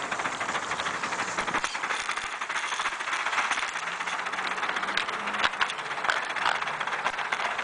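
A 16mm-scale live-steam De Winton vertical-boiler locomotive and its wagon running along garden-railway track, heard from on board: a steady, fast rattling clatter of small wheels and running gear on the rails.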